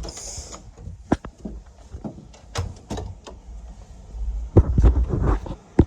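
Scattered clicks and knocks, then a cluster of heavier thumps about four and a half seconds in.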